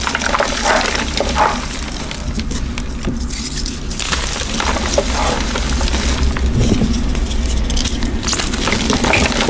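Dyed gym chalk being crushed, a continuous crackling crunch of many small snaps and crumbles.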